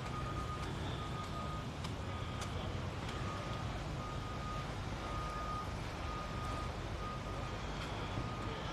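Backup alarm of a construction vehicle reversing: a single-pitch beep repeating about once a second, over a steady low rumble.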